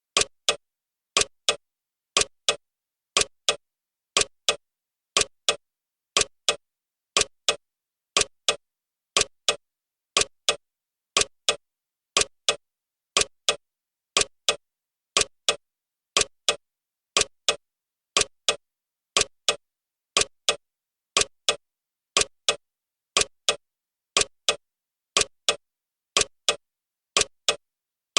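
Clock ticking steadily: sharp tick-tock clicks coming in pairs about once a second, used as a countdown timer's ticking sound.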